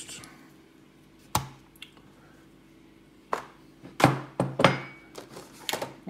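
An opened brass padlock being handled and set down on a desk: irregular knocks and clicks of the lock body and swinging shackle against the tabletop, most of them in the second half.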